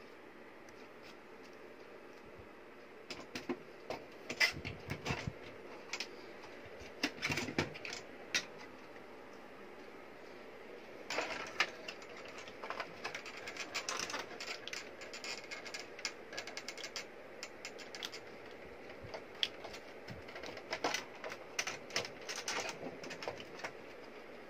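Scattered clicks, knocks and rustles of a 12 V sealed lead-acid battery being handled into a plastic UPS case and its wire terminal connectors being pushed onto the battery tabs by gloved hands.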